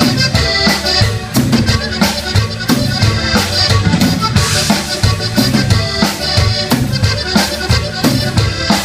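Live Tejano band playing an instrumental passage of a cumbia: accordion carrying the melody over drum kit and bass with a steady dance beat.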